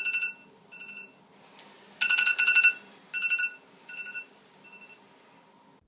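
Phone alarm going off in repeated high beeps, in uneven bursts that grow shorter and fainter and stop about five seconds in.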